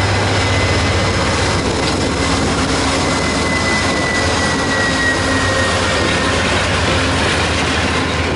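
Amtrak GE Genesis P42DC diesel locomotives passing close by at speed, a steady loud engine drone over rail noise. A thin high whine slides down in pitch through the middle as the locomotives go by, and the passenger cars follow with wheel-on-rail noise.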